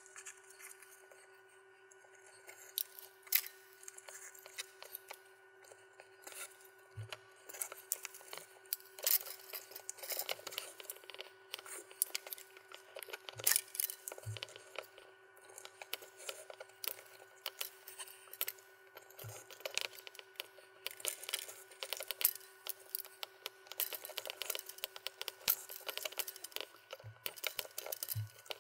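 Hands working a leather wrap with thin lacing cord: many short scratchy rustles and clicks as the cord is drawn through and around the leather, with a few soft knocks of the wooden stick against the work surface. A faint steady hum runs beneath and stops near the end.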